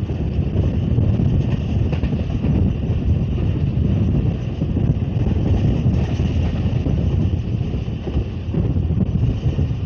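Passenger train running at speed, heard at an open carriage window: a steady rumble of the carriage with wind buffeting the microphone.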